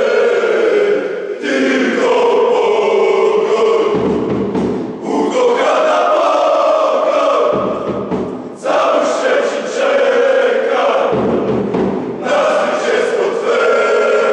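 Large crowd of football supporters chanting in unison, with three short runs of deep bass drum beats a few seconds apart.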